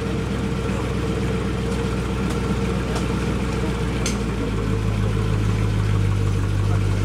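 Land Rover Discovery's V8 engine idling steadily, its deep hum growing stronger about halfway through. A few faint clinks and scrapes from a shovel digging in the mud.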